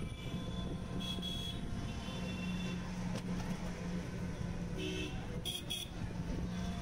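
Street traffic heard from a moving battery-powered e-rickshaw: a steady low hum under scattered vehicle horns, with two quick toots about five and a half seconds in.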